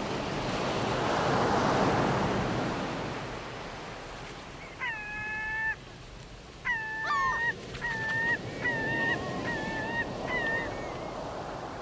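Ocean waves wash in, one swelling to a peak and fading over the first few seconds. Then a bird calls: one longer call about five seconds in, followed by a run of short repeated calls.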